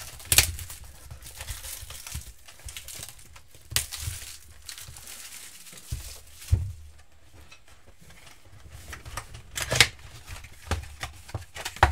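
Plastic shrink wrap being torn and crumpled off a 2018-19 Donruss Soccer trading-card box, in crinkling, tearing spells with a few sharp crackles. Near the end the cardboard box is opened and the packs inside are handled.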